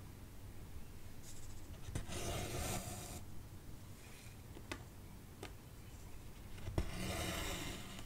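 Cotton embroidery thread being pulled through 14-count cross-stitch fabric: two drawn-out rasping swishes a few seconds apart, with a few light ticks in between.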